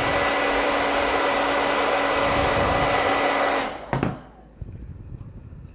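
Hand-held hair dryer blowing steadily with a constant hum, heating the corner of a vinyl device skin so it can be moulded around the curved edge. It cuts off a little under four seconds in, with a click, and faint handling sounds follow.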